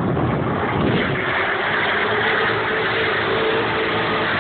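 Drift car's engine running at steady high revs, a continuous drone whose pitch holds level from about a second and a half in.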